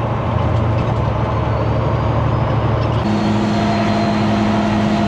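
Semi truck's diesel engine running on the highway, a steady low drone. About three seconds in the note changes: the deep hum drops away and a steadier, higher hum comes in, with a faint high whistle above it.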